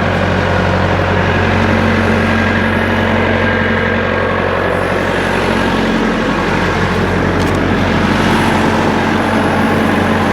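Backhoe tractor's engine running steadily at a constant pitch.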